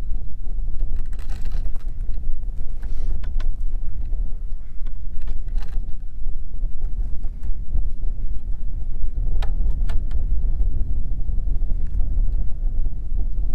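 Wind buffeting the microphone, a steady low rumble throughout, with a few light clicks of fence wire being worked with pliers.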